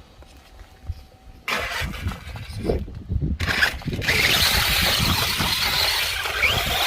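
Electric 1/10 RC truck (FTX Outlaw on a 2S LiPo) pulling away and driving hard. After about a second and a half of only wind rumble, the tyres start churning over rough ground under a motor whine, and the sound turns loud and steady from about four seconds in.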